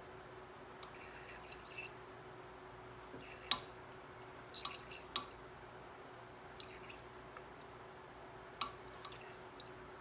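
Liquid swirled in a hand-held glass Erlenmeyer flask under a burette to mix in titrant during a titration, with a few sharp glass clinks that ring briefly, the loudest about three and a half seconds in, others around five seconds and near the end. A faint steady hum runs underneath.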